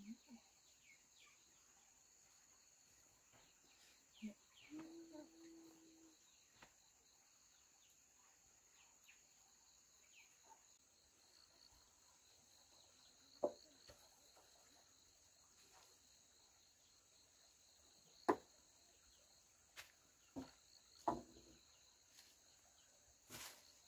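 Faint, steady high-pitched chirping of insects. A few sharp knocks come in the second half.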